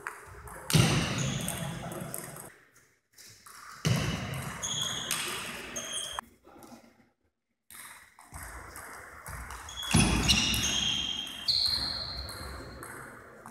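Table tennis rallies: the celluloid ball clicking off rubber-faced bats and the table top in quick irregular strokes, some bounces with a short high ping. Three louder bursts stand out, about a second, four seconds and ten seconds in.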